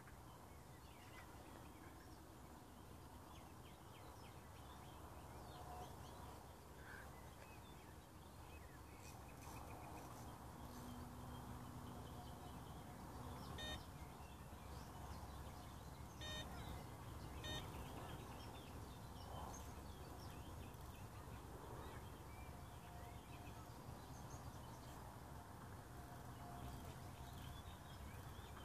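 Faint outdoor ambience: a low steady rumble with scattered distant bird calls, and a few sharp clicks about halfway through.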